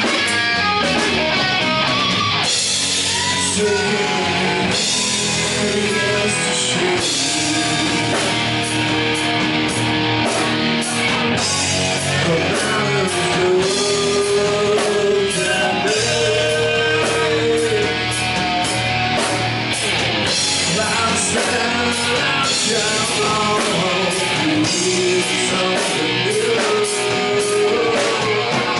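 Live rock band playing: a male singer over electric guitars, bass and drums.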